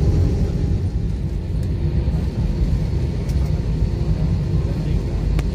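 Cabin noise of an Airbus A320neo rolling on the runway: a steady low rumble from the engines and wheels, with a faint hum that comes and goes and a faint click near the end.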